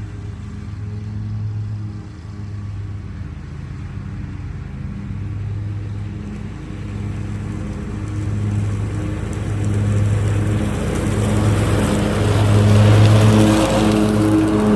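Riding lawn mower engine running steadily, its note wavering, growing louder with more hiss over the last few seconds.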